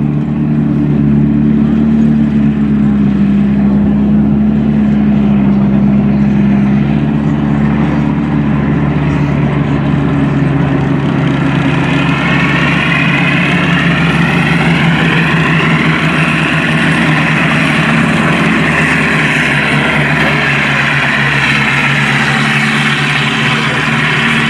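M24 Chaffee light tank driving on dirt, its twin Cadillac V8 engines running steadily. About halfway in, the clatter and squeal of its steel tracks grows louder as it passes close and turns.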